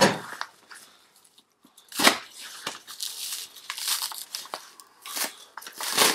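Plastic film wrapping being cut and torn open, crinkling along with the paper beneath it, in a series of short rustling bursts with a brief pause about a second in.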